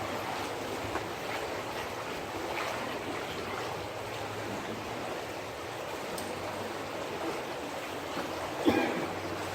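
Stream water rushing steadily over a shallow, rocky bed, with one brief knock about a second before the end.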